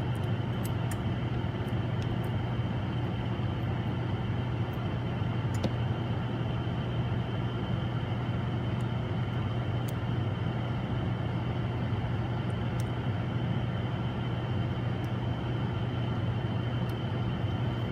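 Steady low machine hum with a thin high whine over it, unchanging throughout, and a few faint light clicks.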